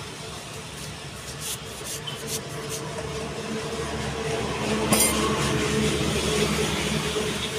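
A motor vehicle engine running steadily, growing louder about halfway through. Small clicks and scrapes come from layers of cut tire rubber being handled and pulled apart.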